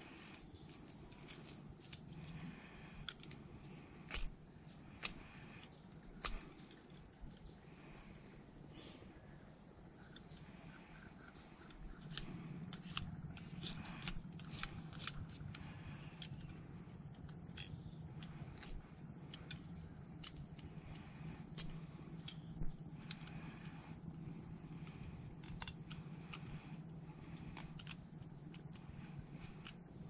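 Steady high-pitched drone of insects in dense undergrowth, with scattered sharp clicks and knocks close by.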